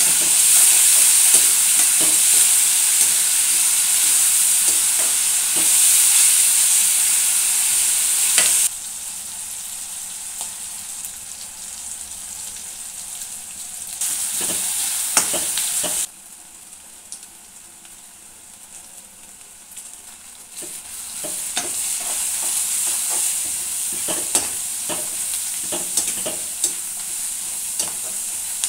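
Chopped onions sizzling in hot oil in a kadai, stirred with a perforated metal spatula that scrapes and clicks against the pan. The sizzle drops suddenly about nine seconds in, comes back briefly, goes quieter, then picks up again for the last third.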